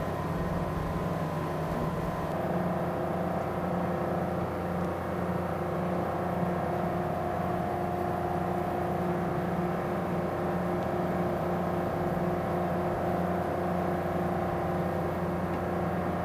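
Steady drone of running shipboard machinery: a low hum with several steady tones above it, shifting slightly about two seconds in.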